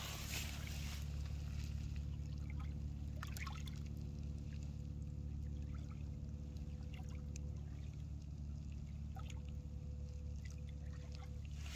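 Small ripples lapping and trickling at a muddy lake shore in faint, scattered splashes, over a steady low hum.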